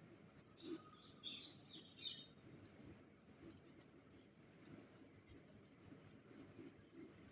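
Faint scratching of a pen drawing on paper, in soft repeated strokes, with a few brief high chirps about a second in.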